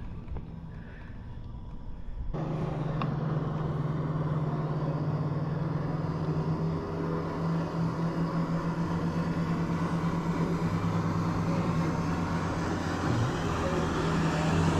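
An engine running steadily with a low, even hum, which starts abruptly about two seconds in after a quiet stretch.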